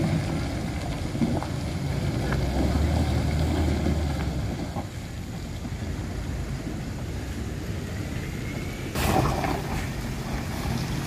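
Heavy diesel dump-truck engines running at low speed as the trucks crawl through deep mud, a steady low rumble. About nine seconds in there is a short noisy burst.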